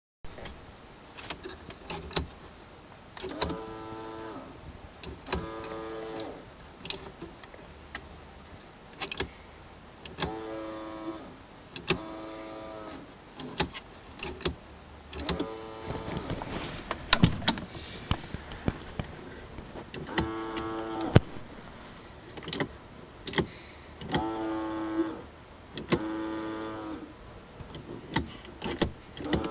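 Datsun 280Z heater/air-conditioning servo motor whining in short runs of about a second each, often two in quick succession, with sharp clicks in between.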